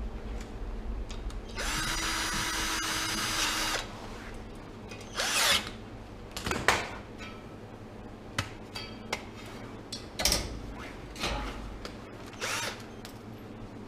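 Cordless drill-driver running steadily for about two seconds while screws go back into the refrigerated display case's fan assembly, followed by a series of short clicks and clatters from parts being handled.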